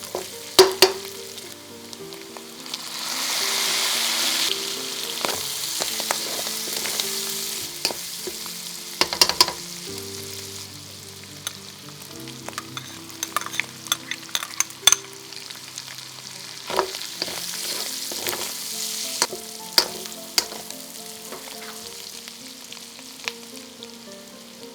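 Food sizzling in a hot pan while being stirred, with a utensil clicking and scraping against the pan many times. The sizzle swells loudly for a couple of seconds about three seconds in, and again around seventeen seconds in. Soft background music with held notes plays underneath.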